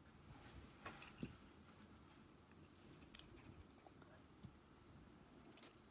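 Near silence with a few faint, scattered clicks of beads knocking together as a strand of glass and magnetic beads is handled between the fingers.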